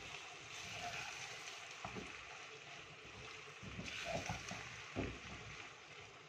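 Minced mutton sizzling in released ghee in a clay handi while a wooden spoon stirs and scrapes through it, with a few soft knocks of the spoon against the pot. The ghee has separated out, the sign that the keema is cooked through.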